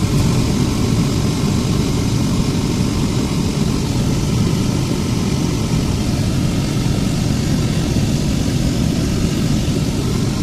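VW Caddy Mk3's cabin blower fan running hard with the pollen filter out, air rushing from the empty filter housing and blowing out dust and debris. The steady rush cuts off suddenly near the end.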